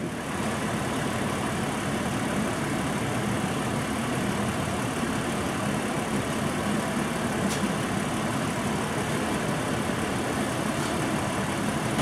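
Toyota Tacoma V6 engine idling steadily, its cylinder 3 ignition coil shorted and causing occasional misfires.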